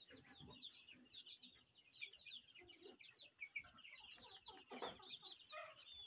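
A flock of three-week-old chicks peeping: many short, high, falling cheeps overlapping one another, faint.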